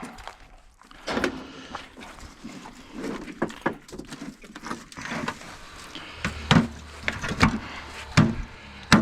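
Irregular knocks and clatter of hand tools and metal parts being handled while an air conditioner is torn down for scrap. The knocks come thicker and louder in the second half.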